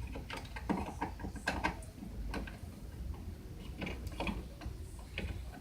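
Irregular light clicks and scrapes of a flathead screwdriver working the screws of a smoke alarm's mounting plate on an electrical box.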